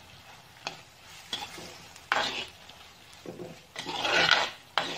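Steel spoon stirring chopped onions and tomatoes in a frying pan, scraping the metal pan in several uneven strokes, the loudest scrape coming near the end.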